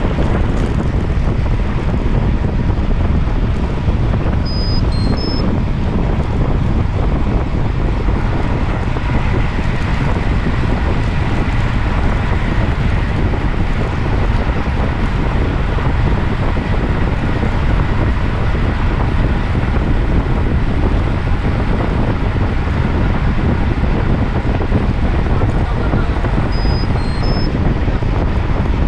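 Steady wind rumble buffeting the microphone while moving, with a short cluster of faint high beeps about five seconds in and again near the end.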